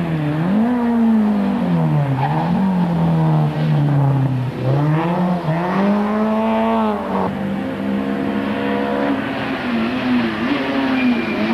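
Rally car engine revving hard, its pitch climbing and dropping again and again as the car accelerates, lifts off and changes gear, holding a steadier higher note for a couple of seconds past the middle.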